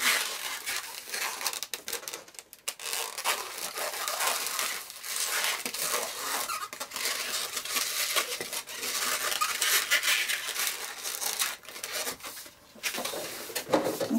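Latex 160 modelling balloons rubbing and squeaking against each other and the fingers as they are twisted and locked together by hand. The sound is an irregular scratchy rubbing, with brief pauses.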